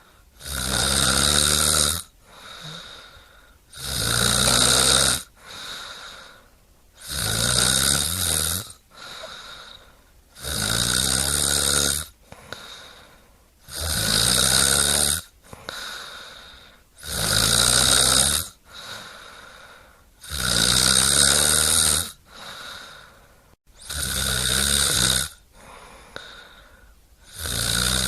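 Regular snoring: nine long, loud snores at even spacing, about one every three and a half seconds, each rising slightly in pitch, with quieter breathing between them.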